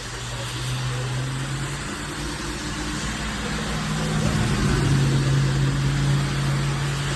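A steady low motor hum over an even hiss, growing louder about four to five seconds in.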